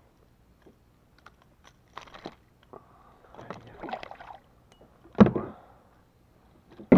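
Handling sounds of releasing a traíra (wolf fish) from a kayak: light clicks of the metal lip grip and pliers, a splash about four seconds in as the fish goes into the water, then two sharp knocks near the end.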